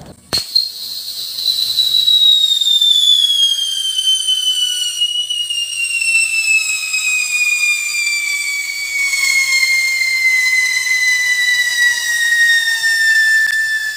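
Homemade scream whistle firework burning: a short crack about half a second in, then one long, loud whistle that slides slowly and steadily down in pitch.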